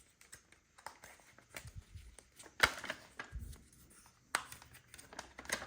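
Scattered small clicks and taps, like plastic parts being handled, with two sharper knocks, one about two and a half seconds in and one near four and a half seconds.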